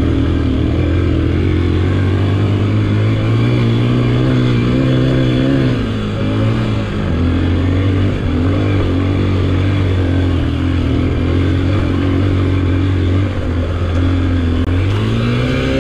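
Motorcycle engine running under way, its pitch mostly steady, dropping about halfway through and rising again near the end as the throttle changes.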